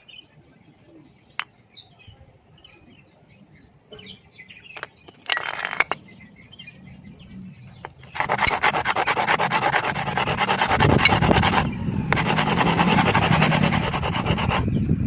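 Hero Splendor motorcycle drum-brake shoe lining being rubbed against an abrasive surface to clean it. After a few faint handling clicks and a short scrape, a steady rasping rub starts about halfway through, with a brief pause partway.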